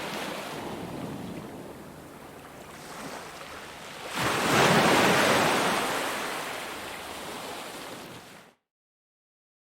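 Ocean surf on a beach: a steady wash, then a wave breaks about four seconds in and washes out slowly. The sound cuts off abruptly to total silence near the end.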